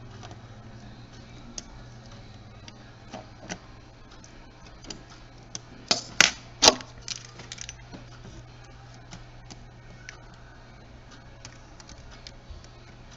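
Scattered small clicks and taps from handling a camcorder's small plastic parts and tools during disassembly, with a cluster of three sharp clicks about six seconds in. A steady low hum runs underneath.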